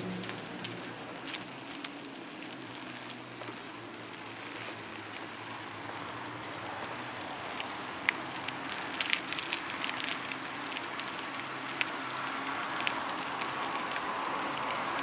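Bicycle riding along a trail: steady rolling tyre and rushing air noise with scattered small clicks and ticks, getting a little louder near the end.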